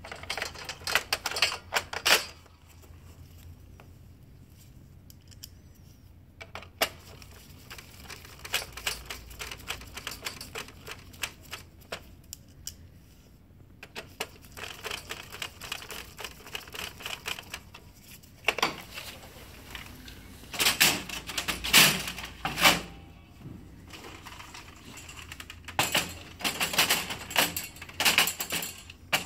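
Irregular runs of small plastic-and-metal clicks and clacks as a laser printer paper tray's separation roller assembly is pressed back into place and a small screw is turned into it. The loudest clusters of clacking come in the second half, the last of them as the tray is slid back into the printer.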